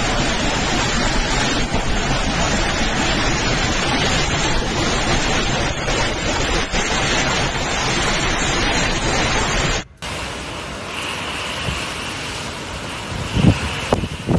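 Hurricane-force storm wind with heavy rain, heard as a loud, steady rush of noise and wind buffeting the microphone. About ten seconds in it cuts abruptly to a quieter stretch of wind, with a few low thumps near the end.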